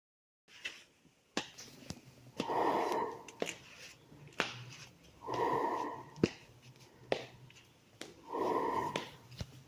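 Long, breathy swells of noise, one about every three seconds, with sharp clicks and taps between them: a person's heavy breathing.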